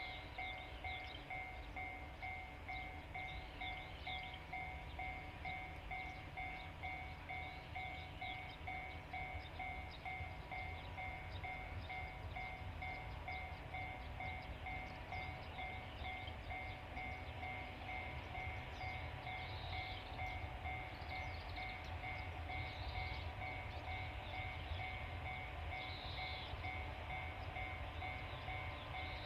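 Low, steady rumble of a train, slightly louder in the second half, with a rapidly pulsing two-pitched electronic tone throughout. Short high chirps like birdsong come every few seconds.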